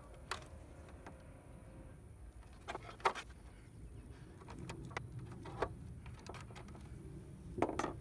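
Hand wire crimper and wires being handled while a crimp connector is fitted: a few sharp clicks, the loudest about three seconds in and again near the end.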